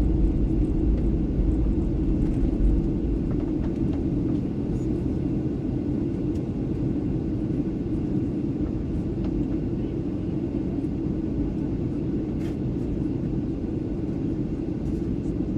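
Steady low drone heard inside the cabin of an Embraer EMB 120 Brasília, its twin turboprop engines running during the descent for landing; the drone eases slightly about three seconds in.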